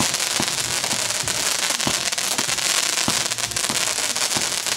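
Consumer fireworks going off: a steady hiss of burning spark trails with many sharp, irregular crackles and pops.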